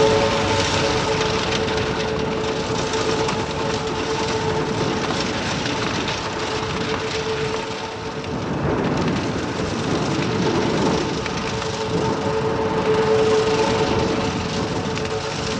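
Heavy earthmoving machinery working: a diesel engine running steadily under load, with a constant high whine over a broad mechanical rumble.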